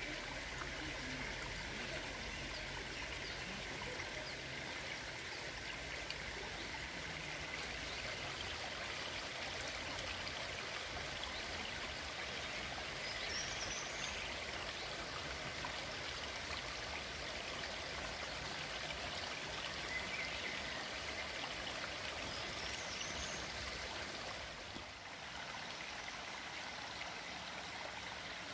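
Steady rush of water running through a beaver dam of branches, with a few short high chirps from birds.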